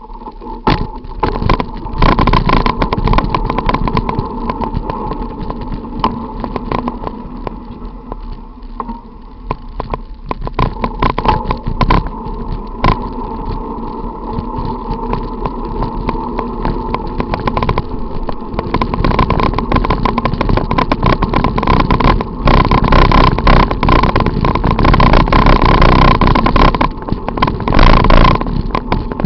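A bicycle riding through city traffic, heard from a camera mounted on the bike: loud road and wind noise with many quick knocks and rattles, among running car engines. The noise jumps up just after the start as the bike sets off from standstill.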